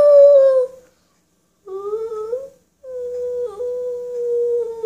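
A young child humming wordlessly in long high notes: the first slides slowly down and trails off within the first second, a short wavering one comes about two seconds in, and a long, nearly steady one starts about three seconds in.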